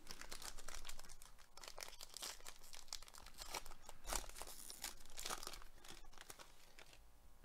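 Foil wrapper of a Panini Prizm baseball card pack crinkling and tearing as it is ripped open by hand, a dense run of small crackles that dies away near the end.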